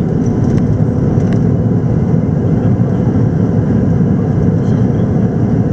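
Cockpit noise of an Antonov An-225 Mriya's six turbofan engines and airflow as the nose lifts off the runway: a loud, steady rumble.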